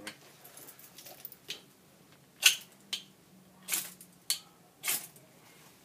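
Fire steel (ferrocerium rod) being struck with a metal scraper to throw sparks onto a spirit stove: a run of about five short, sharp scrapes, roughly two a second, starting about halfway through.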